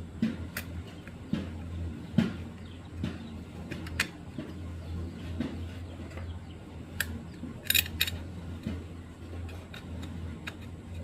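Tools and small metal parts clinking and tapping irregularly during motorcycle clutch work, with a quick run of sharp clicks about two-thirds of the way through, over a steady low hum.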